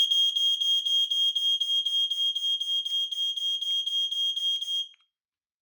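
Ei2110 multi-sensor smoke alarm sounding on its test button: a loud, high-pitched piercing tone that ripples about four times a second, then cuts off suddenly about five seconds in.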